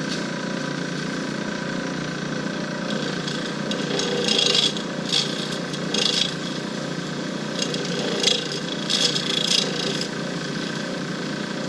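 Lathe running steadily while a turning tool cuts the spinning shifter-knob blank in several short passes. The cut sounds smooth rather than chipping, the sign that the blank has been turned round.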